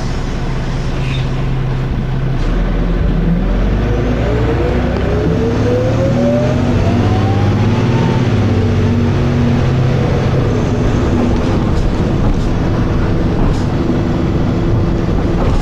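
Dennis Arrow double-decker bus's diesel engine pulling under load as the bus accelerates through its ZF automatic gearbox. A whine climbs steadily in pitch from about two seconds in to about eight seconds in, then the engine runs on at a steady note.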